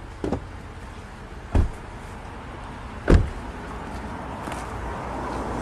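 Car door being shut: a light knock, then two heavy thumps about a second and a half apart, the second the loudest, over a steady outdoor hiss that grows near the end.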